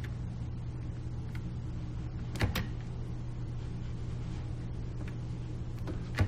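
A few sharp clicks from working a computer, two close together about two and a half seconds in and a louder one near the end, over a steady low electrical hum.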